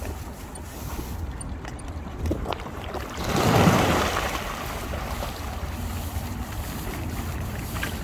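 A flock of Eurasian coots splashing and scrambling across the water in a loud rush of churned water that swells about three seconds in and fades a second or so later. Wind rumbles on the microphone throughout.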